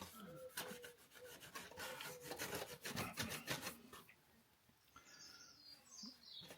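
Metal polish being rubbed by hand onto a Harley-Davidson Sportster's metal engine casing, a faint run of quick, irregular rubbing strokes that tail off about four seconds in.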